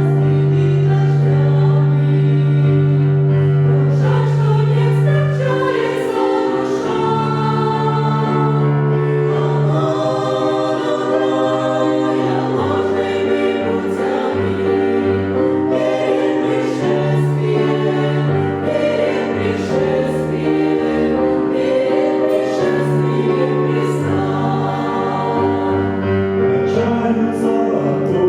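Church choir singing a hymn in several parts, holding long sustained chords that shift every few seconds.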